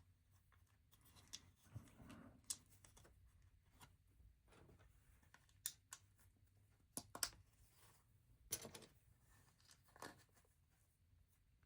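Quiet, scattered sharp clicks and taps of plastic LEGO bricks being handled and pressed together, about half a dozen at irregular moments, with faint rustling in between.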